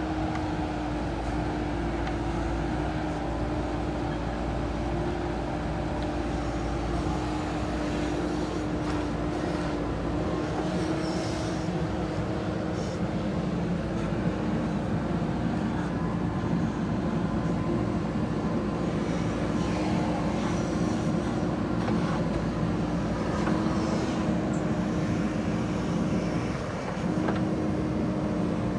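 Diesel engine of earth-moving machinery running steadily with a constant hum, with a few faint knocks and a brief dip in level near the end.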